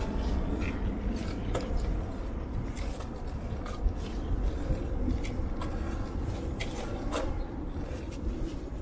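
Bicycle riding noise: wind rumbling on the microphone over a steady hum of tyres on asphalt, with scattered sharp clicks and rattles from the bike as it rolls over cracks in the pavement.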